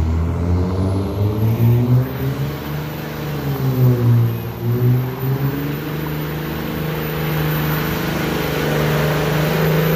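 Pickup truck's engine revving hard during a burnout, spinning its rear tyres. The engine pitch dips about four seconds in, then holds high while a hiss from the spinning tyres grows stronger.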